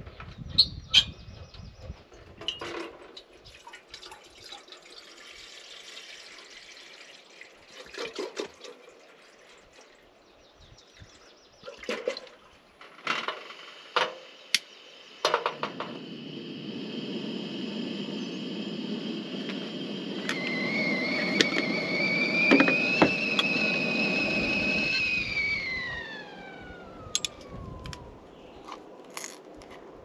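Two-burner camp stove being lit: a run of sharp igniter clicks, then the burner catches about halfway and runs with a steady gas hiss. A few seconds later a stovetop kettle starts whistling, rising a little in pitch, then the whistle glides down and dies away as the heat comes off.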